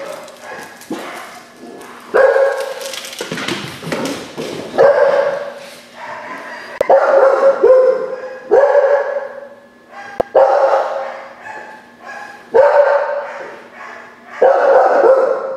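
A dog barking repeatedly, loud pitched barks coming about every two seconds.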